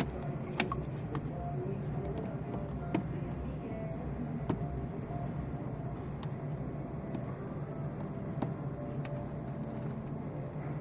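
A 1997 VW Polo's single-point-injection petrol engine idling steadily, with a few sharp clicks.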